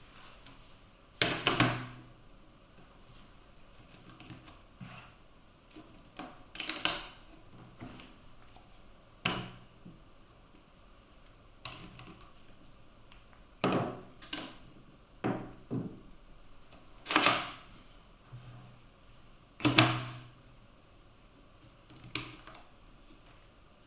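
Sharp clicks and clacks, spaced irregularly a second or more apart, from a slim foldable split keyboard being handled.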